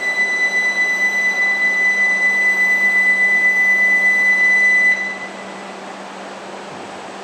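A station departure warning buzzer on a shinkansen platform gives one steady, high electronic tone that cuts off suddenly about five seconds in, signalling that the train is about to leave. A low steady hum and a faint rushing noise run underneath.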